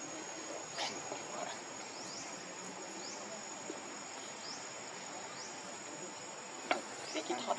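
Steady high-pitched insect drone, likely crickets, with short rising chirps every second or so and a few sharp clicks near the end.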